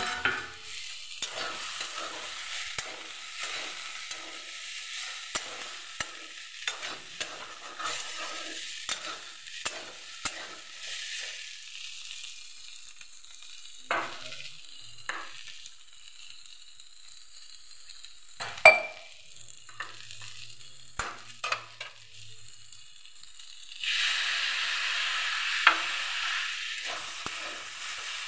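Potato and jackfruit pieces frying in oil in a steel kadhai, sizzling while a metal spatula stirs and scrapes them against the pan, with one sharp clank about two-thirds of the way through. The sizzle grows louder near the end.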